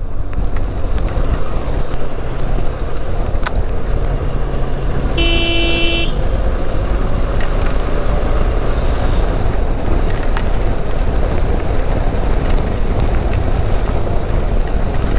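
Benelli TRK 502's parallel-twin engine running steadily while riding, under a steady rush of wind and road noise. A single vehicle horn toot, under a second long, sounds about five seconds in.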